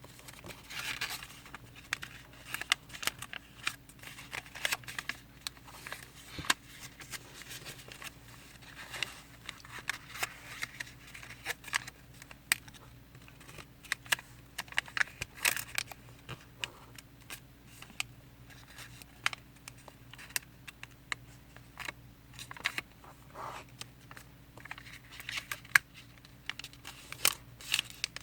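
Square origami paper being folded and creased by hand: irregular crisp rustles of the sheet with many sharp clicks and taps as folds are pressed down, over a faint steady hum.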